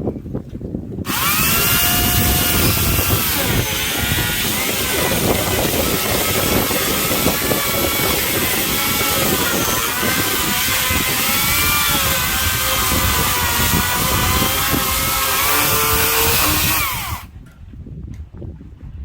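Electric chainsaw cutting through a firewood log. It starts about a second in and stops near the end, and the motor's whine wavers up and down as the chain loads in the wood.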